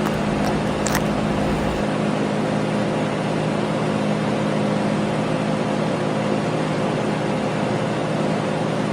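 Steady mechanical drone: an even hiss with a constant low hum under it, like machinery or a vehicle running, with a faint click about a second in.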